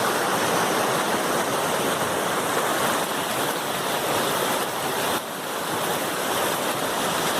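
River water rushing loudly over rocks in rapids, a steady dense roar.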